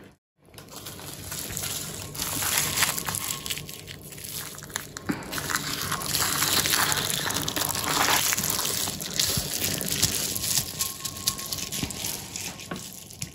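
Plastic bubble wrap rustling and crinkling under the hands as the chocolate-coated sheet is pressed around a cake, with many small crackles and clicks.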